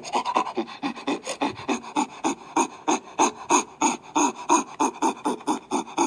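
Chimpanzee giving a fast, rhythmic series of panting calls, about five a second, each a short breathy call falling in pitch.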